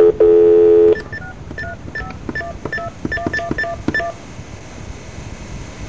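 Telephone keypad tones over a phone line: a loud, buzzy beep of under a second, then a quick run of about a dozen short touch-tone (DTMF) beeps that ends about four seconds in.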